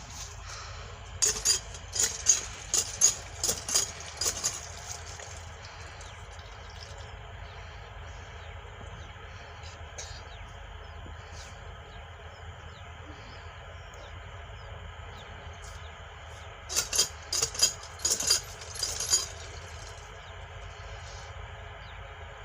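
Dry wheat straw crackling and rustling as a cut bundle is handled, in two bouts a few seconds long, about a second in and again near the end, over a steady low hum.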